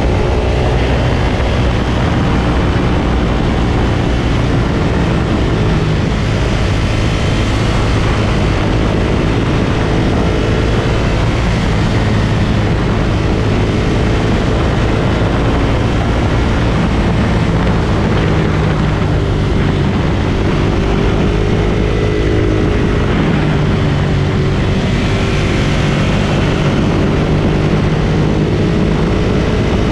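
Ducati Monster 1200S's 1198 cc L-twin engine running under way, its pitch rising and falling as the rider works the throttle, over a steady rush of noise.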